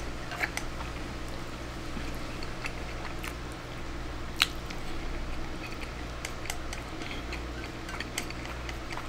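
Wooden chopsticks clicking now and then against a ceramic rice bowl while a man eats an egg-and-rice bowl, with a sharp click about four and a half seconds in. A steady low hum runs underneath.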